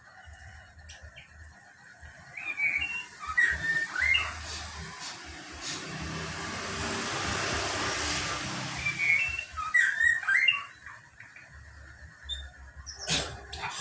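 Drongo (srigunting bukit) giving short, sharp chirping notes in two bursts, one a few seconds in and another around ten seconds in. Between them a rushing noise swells and fades, and a sharp click comes near the end.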